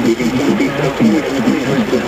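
NOAA Weather Radio computer voices reading a tornado warning, several stations' broadcasts talking over one another so that the words blur together.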